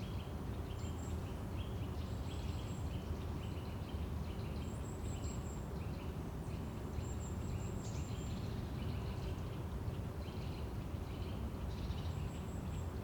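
Forest ambience: small birds chirping in short, repeated calls, with a few thin, high-pitched held notes, over a steady low rumble.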